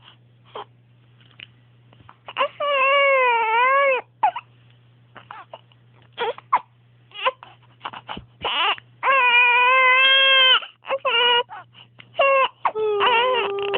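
Baby crying: three long wails of one to two seconds each, about two seconds in, around nine seconds in and near the end, with short sharp sounds between them.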